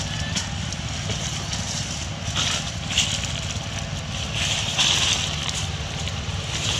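Dry fallen leaves crackling and rustling in short bursts as macaques move through them, over a steady low rumble.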